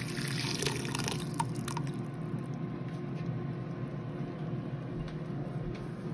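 Hot water pouring from above into a steel pot and splashing over chicken bones; the pour tails off about two seconds in. A steady low hum runs underneath.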